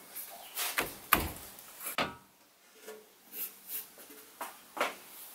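Hands working on a car's rear window surround and glass, giving a series of separate knocks and clunks with some rubbing between them. The loudest knock comes about a second in.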